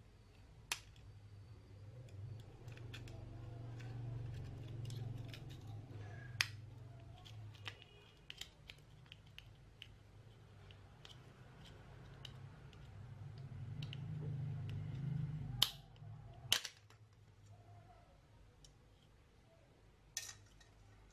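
Small plastic clicks, scrapes and snaps from a wired computer mouse being taken apart with a screwdriver and a flat prying tool, with several sharper snaps, the loudest about three quarters of the way through, over a low rumble that swells and fades.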